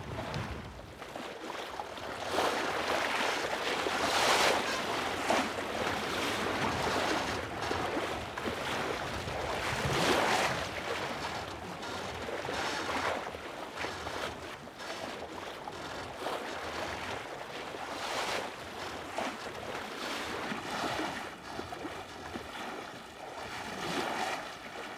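Water rushing and splashing along the hull of a sailing boat under way, a steady hiss that swells louder in irregular surges every several seconds; no engine is running.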